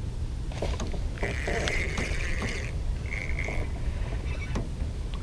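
Spinning reel whirring as a hooked yellow bass is reeled in on a bent rod, in a long spell and then a short one about three seconds in, with scattered clicks, over a steady low rumble.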